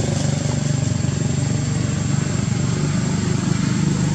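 A small engine running steadily, with a low, even hum and a thin, steady high whine above it.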